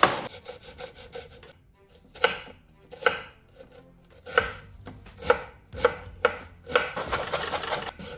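Chef's knife chopping an onion on a wooden cutting board. Single knocks come about a second apart, then quicken into a run of rapid strikes near the end as the onion is finely diced.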